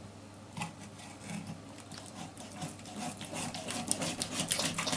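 A large kitchen knife saws through a raw whole chicken along the breast on a wooden cutting board. It makes a series of short crunching clicks that come faster and louder over the last couple of seconds.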